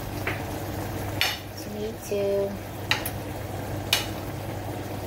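A spoon or spatula knocking and scraping against a cooking pan, four or five separate clinks, as chopped tomato is stirred into simmering chicken adobo, with a low frying sizzle underneath.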